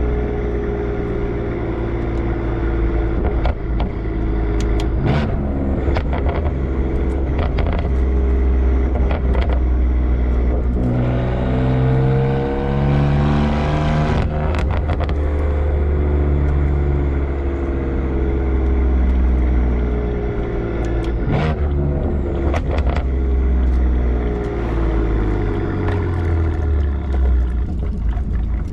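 BMW M4's S55 twin-turbo inline-six running through catless downpipes, a single mid pipe and an aftermarket axle-back muffler. The exhaust drones steadily, rises in pitch under acceleration around the middle, then falls back, with a few sharp clicks along the way.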